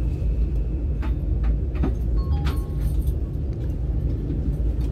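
Cabin noise inside a CRH high-speed train running along the line: a steady low rumble with a few light clicks.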